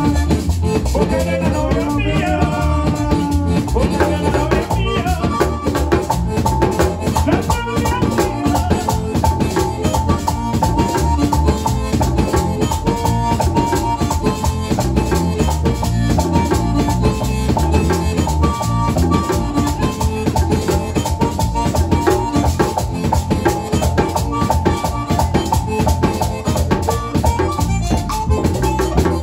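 Live band playing upbeat Latin dance music, with drums keeping a steady beat and a singer's voice in the first few seconds, then an instrumental stretch.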